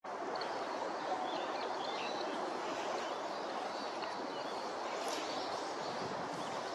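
Steady outdoor background noise with scattered short bird chirps.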